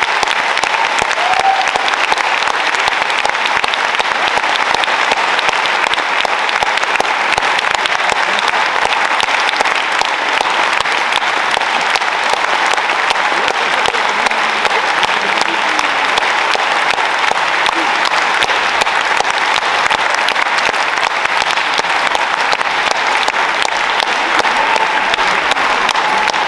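Large concert-hall audience applauding steadily and at length.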